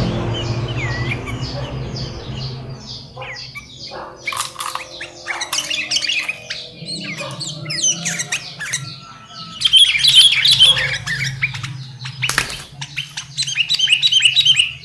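Sooty-headed bulbuls (kutilang) chirping and calling in quick, sharp notes, busiest in two loud flurries about ten and thirteen seconds in. A rumble fades out over the first few seconds.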